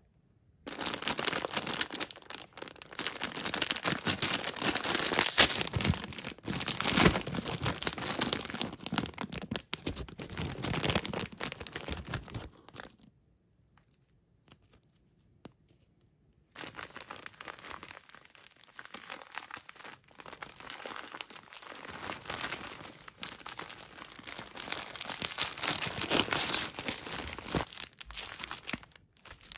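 Plastic snack and candy wrappers being crinkled by hand, in two long stretches with a pause of about four seconds in the middle.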